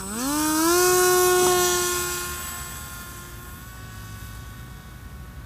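Brushless electric motor and propeller of a Ranger 1600 RC plane spooling up under throttle. Its whine rises in pitch over about the first second, then holds steady and gradually fades as the plane draws away.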